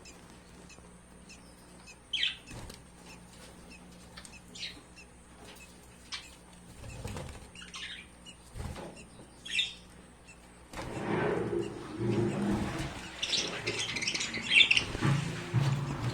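Lovebirds giving short, scattered chirps, then from about eleven seconds in a louder stretch of rustling and wing flapping with quicker chirping.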